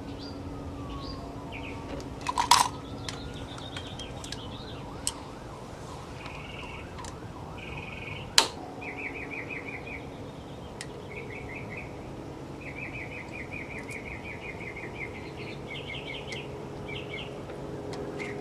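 Two sharp metal knocks, about two and a half seconds in and again about eight seconds in, from a pry tool worked against the glued-on aluminium lid of a 2013 Nissan Leaf's drive unit. Small birds chirp and trill throughout, and a faint siren falls and rises in the first few seconds.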